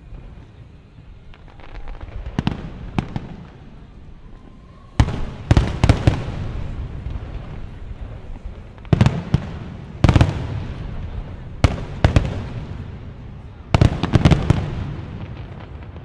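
Fireworks going off: a string of a dozen or so sharp bangs, each trailing off in a fading crackle, the loudest from about five seconds in.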